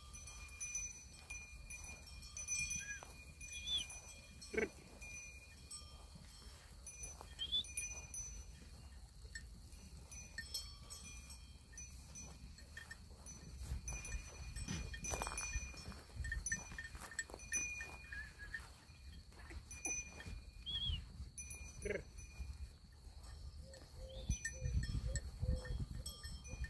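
A herd of goats in pasture: a few scattered bleats over the light ringing of small bells, with wind rumbling on the microphone and growing stronger near the end.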